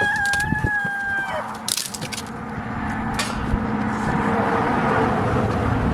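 A rooster crowing once, a single held call that ends about a second and a half in, followed by a few sharp wooden knocks or cracks. Over the second half a steady low hum and rumble builds up.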